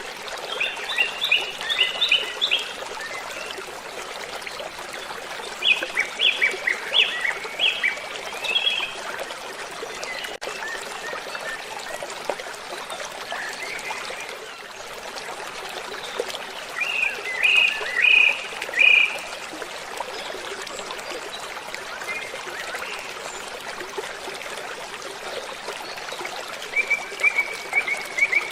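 Steady rushing of falling water, with a songbird singing short phrases of quick, high chirps four times, near the start, about six seconds in, about eighteen seconds in and near the end.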